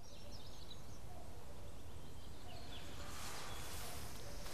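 Steady outdoor background noise with a low rumble, and a few faint bird chirps.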